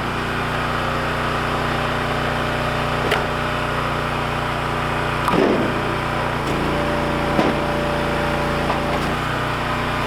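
An engine running steadily, its note changing for a couple of seconds past the middle. About three separate knocks of split firewood pieces being dropped come over it.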